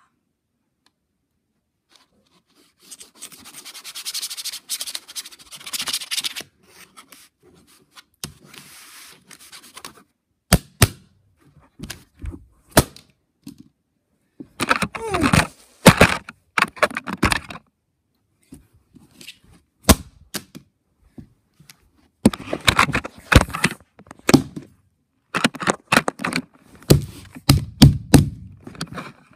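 A heated knife blade scraping and cracking through a floppy disk's plastic casing in short bouts, with several sharp snaps and clicks in between.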